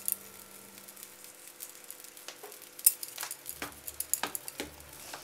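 Atta uttapam batter frying faintly on a hot nonstick tawa, with scattered light clicks and ticks as salt is sprinkled over it by hand.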